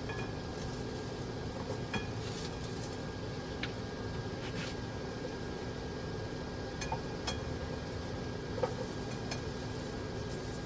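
A steady hum and hiss with several short, light clicks and clinks of cooking utensils spread through it.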